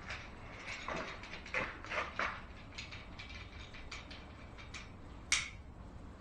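Irregular metallic clicks and clacks of hand tools being handled, with one sharper click about five seconds in.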